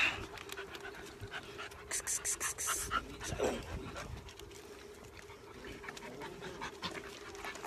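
Puppy panting, with a quick run of short breaths about two seconds in.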